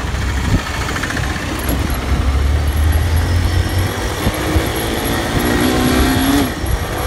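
Hero motorcycle engine running on the move, with a heavy low rumble; the engine note climbs from about four seconds in to just past six as the bike picks up speed.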